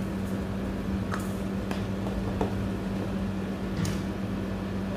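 Steady low machine hum, with a few faint light taps.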